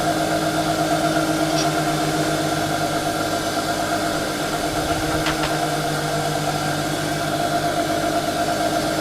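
A motor running with a steady, even-pitched hum, with a couple of faint clicks over it.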